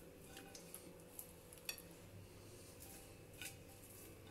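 Faint, scattered taps and light scrapes of a nonstick pan's rim against a glass dish as thick custard is poured out of it.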